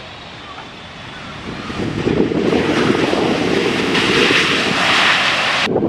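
Jet engine noise from a Boeing 777-300ER's two GE90 turbofans on the takeoff roll. It swells to a loud, even rush about two seconds in, with wind buffeting the microphone, and cuts off suddenly near the end.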